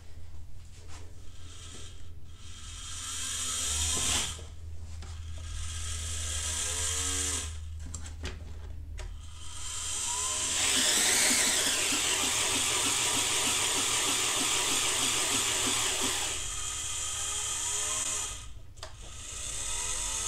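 Small electric drive motors and gearboxes of an RC model Cat compactor run under radio control, whining up and down in pitch several times as the throttle is worked. A louder, steady grinding run lasts about six seconds in the middle. The rear motors spin with no load on them, so they take all the power instead of the front drive.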